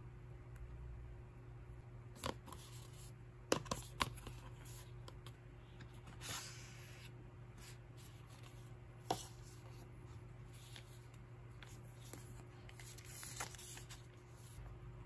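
Handling sounds of a phone and a soft silicone card-slot case: a few sharp taps and clicks, with softer rustling and a paper leaflet rustling near the end, over a low steady hum.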